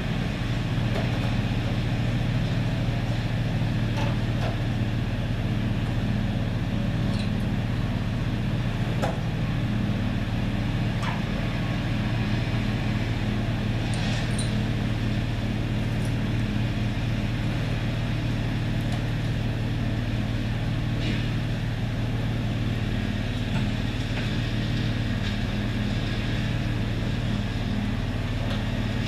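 An engine running steadily, a low even drone, with a few faint clicks and knocks from handling on the bench.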